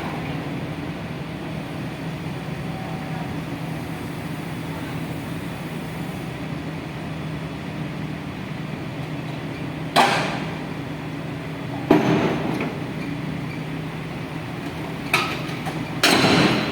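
A Caterpillar excavator's diesel engine running steadily, with loud bangs about 10 and 12 seconds in and two more near the end.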